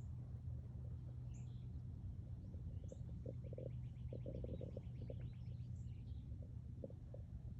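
Birds calling outdoors: short high chirps every second or so, and a fast trill of quickly repeated notes lasting about two seconds midway, over a steady low rumble.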